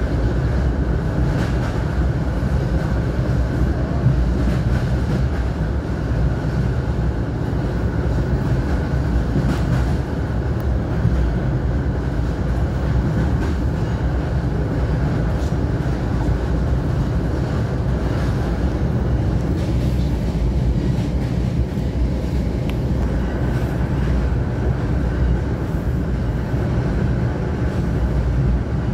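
Interior of a moving passenger train: a steady low rumble of wheels running on the track. A faint high whine sits over it, dropping out about twenty seconds in and coming back a few seconds later, with an occasional light knock.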